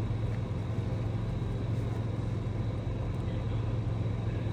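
A steady low hum and rumble, like a motor running, unchanging throughout.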